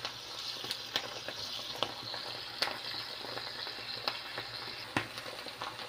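Diced pork frying in oil in a clay cazuela on low heat: a steady sizzle with scattered crackles and pops.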